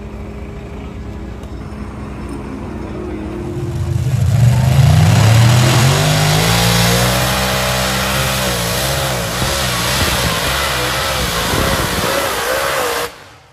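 A vehicle engine running close by, getting much louder about four seconds in as its pitch rises, then holding with a wavering pitch; the sound cuts off abruptly near the end.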